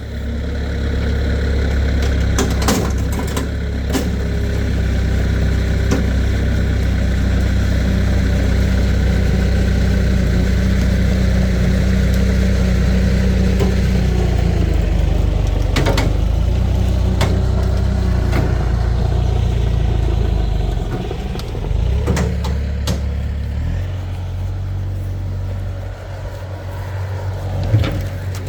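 A motor vehicle's engine running steadily, dropping back briefly about 21 seconds in, then picking up again, with a few clanks over it.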